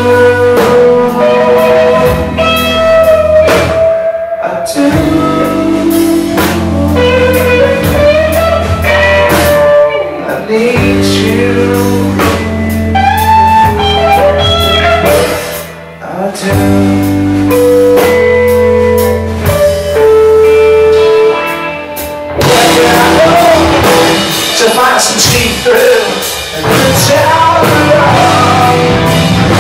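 Live rock band playing: electric guitars, bass and drum kit, with singing and long, bending held notes. The sound gets denser and brighter about three-quarters of the way through.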